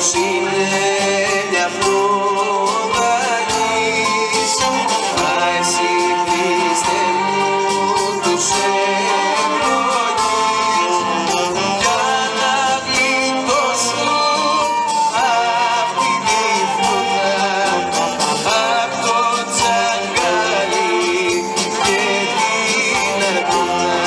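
Live music from a municipal philharmonic wind band: several melodic lines over frequent percussion strikes, playing without a pause.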